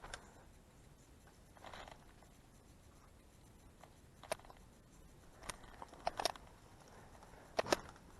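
Scattered sharp clicks: one at the start, then single clicks and quick pairs from about four seconds in, with a short rustle about two seconds in.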